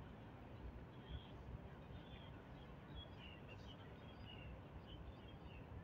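Faint outdoor ambience: small birds chirping in short, scattered calls over a steady low background rumble.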